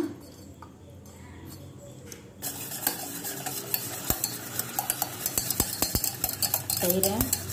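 Thick curd is poured softly into a stainless steel bowl, then from about two and a half seconds in a wire whisk beats it, a fast rattle of the wires against the steel.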